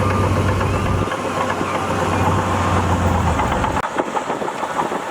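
Diesel engine of heavy earthmoving machinery running with a steady low hum and metallic rattling; the hum drops away about three and a half seconds in while the clatter goes on.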